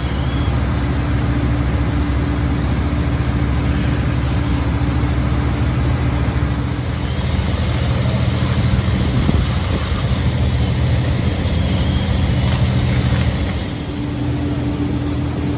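Fire apparatus engines running steadily while pumping water to charged hose lines and a ladder stream. The low hum changes about fourteen seconds in.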